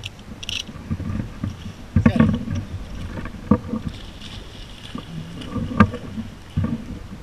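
Rustling and irregular knocks from a hunter shifting his camouflage clothing and shotgun close to the microphone, the loudest about two seconds in and again near six seconds.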